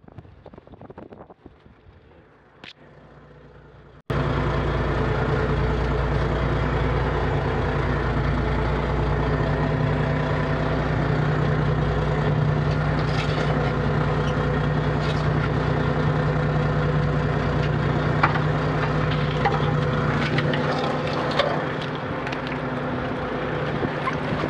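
The fishing boat's engine-driven machinery, with its net hauler, starts up abruptly about four seconds in and then runs with a steady low drone. Sharp cracks and knocks from crabs and gear being handled sound over it.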